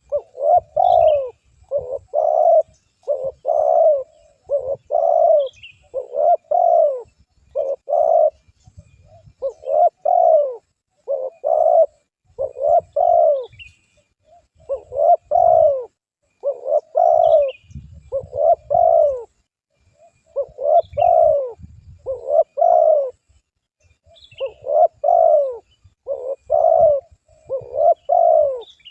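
Spotted dove (tekukur) cooing: repeated phrases of several low, rounded coos with short pauses between the phrases. Faint high chirps from another small bird sound in the background.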